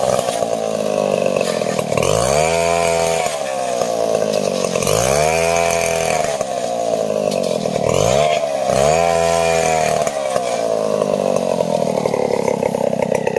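Two-stroke chainsaw ripping a log lengthwise into planks, running loud at high revs. Its engine speed drops sharply and climbs back three times, about every three seconds, then holds steadier near the end.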